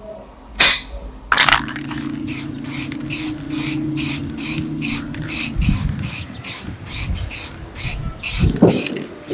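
Aerosol spray paint can hissing in short repeated bursts, about three a second, as model wheel hubs are sprayed. A single sharp click comes just before the spraying starts.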